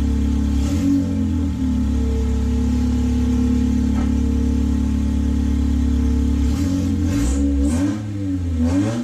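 Honda K20 four-cylinder engine of an Acura RSX Type S idling very loud through an open long-tube race header with no exhaust attached. A quick throttle blip comes about a second in, and several short revs come in the last few seconds.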